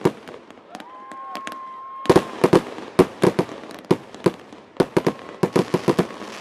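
Aerial fireworks going off in fast runs of sharp bangs and cracks. There is a short lull about a second in, where a steady whistling tone holds, and then another quick series of bangs from about two seconds in.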